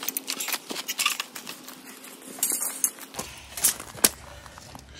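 Galvanised steel pipe clinking and knocking against a hand-operated pipe bender as it is worked in and out of the bender. A run of sharp metal clicks and taps, with the loudest knocks a little after three and a half seconds in.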